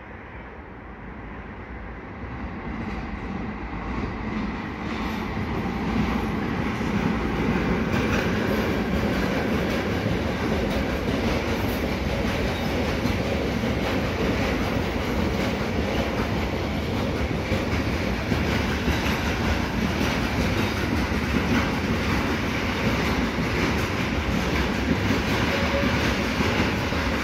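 Freight train of open goods wagons approaching and rolling past, getting louder over the first six seconds, then a steady rumble of wagon wheels on the rails.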